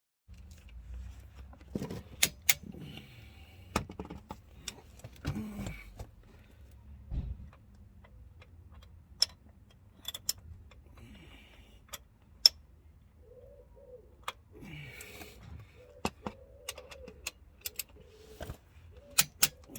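Scattered metal clicks, clinks and knocks of a socket and hand tools working the crank pulley bolts. Near the end there are short bouts of bird cooing in the background.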